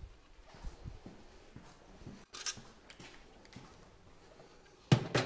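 Faint clatter and rustling of things being handled, with a few soft knocks, a sharp click about halfway, and a louder sharp knock with a short rattle near the end.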